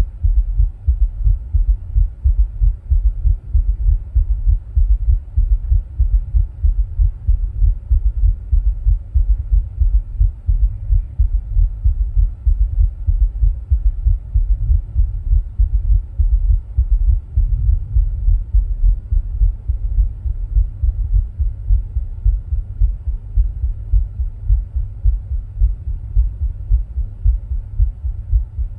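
A person's own heartbeat, picked up close at the chest while he rebreathes from a plastic bag: a steady, regular run of low, dull thumps. A faint steady hum sits underneath.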